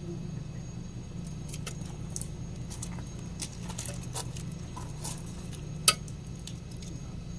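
Steady low hum with scattered light metallic clicks and taps, one sharper click about six seconds in.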